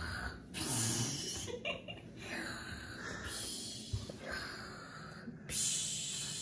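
Heavy, noisy breathing: several long breaths of about a second each, the loudest about half a second in and near the end.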